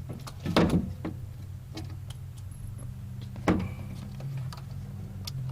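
Door speaker being worked out of a Ford F-150 door: scattered small clicks of a hand tool and plastic parts, with two louder knocks, one about half a second in and one about three and a half seconds in, over a steady low hum.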